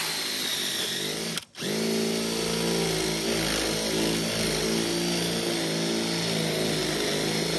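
Cordless drill with a 1-inch paddle bit boring a starter hole through asphalt roof shingles, its motor running at a steady pitch. It stops briefly about a second and a half in, then runs on steadily.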